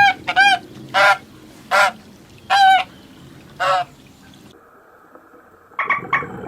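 Domestic goose honking, six short calls over about four seconds. Near the end a different animal's rapid chattering calls begin.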